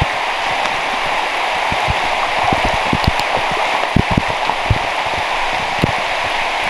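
Heavy pouring rain, a dense steady hiss, with irregular soft thumps close to the microphone scattered through it.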